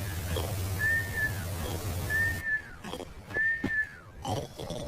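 Short whistled notes, each rising a little and falling off, repeated about every second and a half, with a few low grunts between them.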